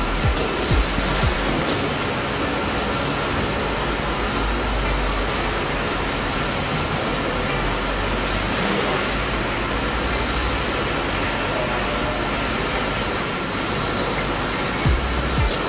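Small WLtoys V929 Beetle toy quadcopter whirring steadily, its electric motors and propellers making an even hiss with a faint high whine. Low thumps of wind on the microphone at the start and again near the end.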